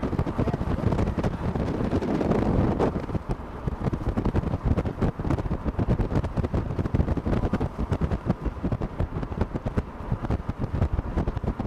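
Strong, gusty wind buffeting the microphone: a rough, uneven rumble that is loudest in the first few seconds.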